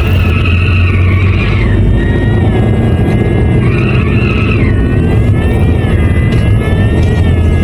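Car driving, heard from inside the cabin: a steady low road and engine rumble. Over it runs a high, wavering tone that slides slowly up and down.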